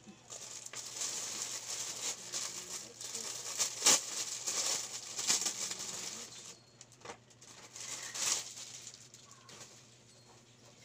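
Clear plastic packaging of a bedsheet set crinkling and rustling as it is handled and opened, with a sharp crackle about four seconds in. The rustling thins out after about six seconds.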